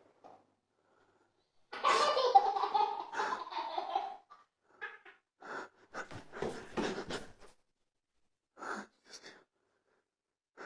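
A child's laughter: one longer laugh about two seconds in, then a run of short broken giggling bursts, and two more brief ones near the end.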